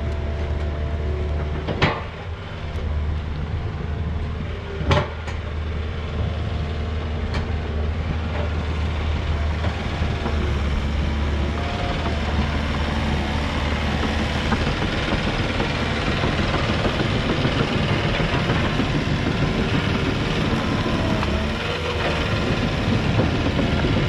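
Diesel engine of a crawler dozer with a root rake running steadily as the machine works and travels over the clearing. Two sharp knocks come about two and five seconds in.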